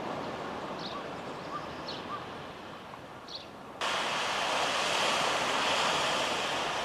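Steady wash of surf on a sandy beach, which comes in suddenly louder about four seconds in. Before that there is a quieter outdoor hiss with a few faint short chirps.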